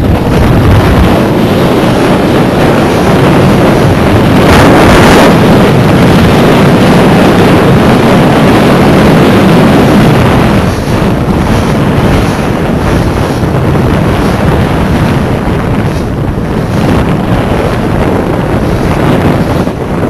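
Loud, steady wind buffeting the microphone aboard a sailing yacht under way, with rushing water, and a stronger gust about five seconds in.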